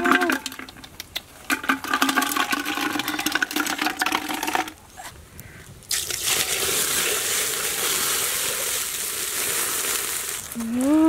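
Snail shells clicking and clattering as they are tipped from a basket into a pot. About six seconds in, water is poured into the pot over the fire, a steady rushing splash. A short rising-and-falling vocal cry comes at the very end.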